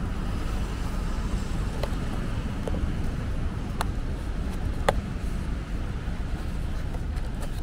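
Steady low rumble of city street traffic with some wind. About two to five seconds in, a few light clicks sound as the lid of a molded-fibre takeout container is pried open.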